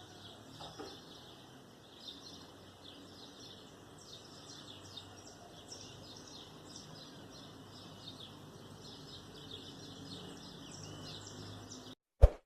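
Many birds chirping, a quick steady run of short high chirps. About twelve seconds in it cuts off, and two sharp pops follow.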